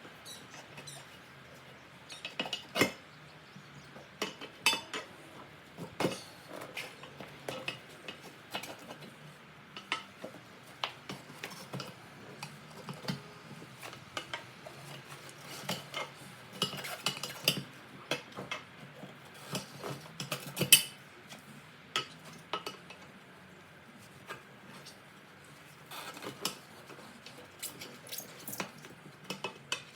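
Steel tire spoons clinking, knocking and scraping against the wheel rim as the bead of a tubeless racing slick is levered over it by hand, a bite at a time. The clicks and knocks come at irregular intervals, with one louder knock about two-thirds of the way through.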